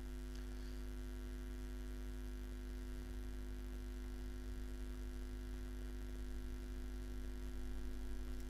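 Steady electrical mains hum with a faint hiss underneath, holding even throughout.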